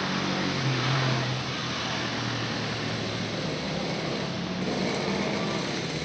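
A motor vehicle's engine running, a low drone that swells about a second in, over steady street noise.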